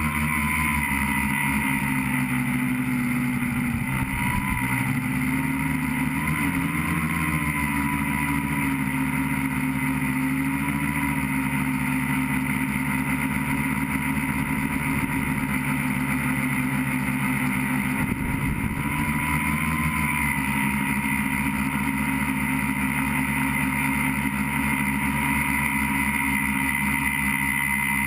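FPV tricopter's electric motors and propellers, heard from on board: a steady motor whine whose pitch wavers a little as the throttle changes.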